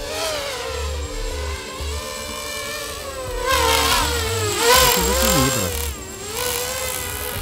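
Brushless motors and propellers of a 250-class FPV quadcopter whining in flight, the pitch rising and falling with the throttle. It gets louder about halfway through, with fast swoops in pitch, then settles back.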